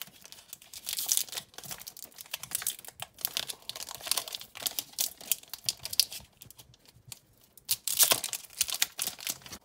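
Foil wrapper of a Pokémon trading card booster pack crinkling in the hands and being torn open: a run of irregular sharp crackles, loudest about a second in and again near the end.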